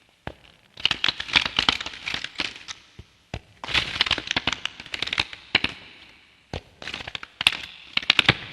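A cabinet being opened three times, each time a rapid cluster of sharp clicks and rattles lasting about two seconds, with a short pause between them.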